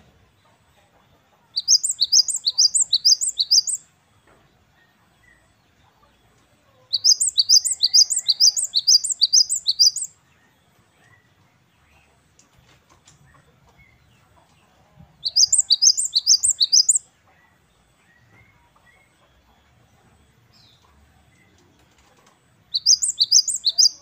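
Great tit (gelatik batu) singing its loud, high 'wucit-wucit' song: four bursts of fast, evenly repeated falling notes, each burst about two to three seconds long, with pauses of several seconds between them.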